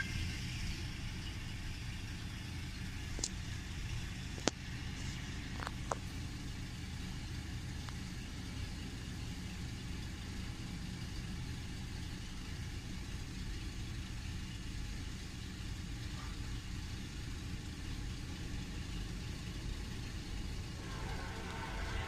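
A car idling, heard from inside the cabin as a steady low rumble, with a few sharp clicks between about three and six seconds in. Near the end a fainter sound with several pitches comes in.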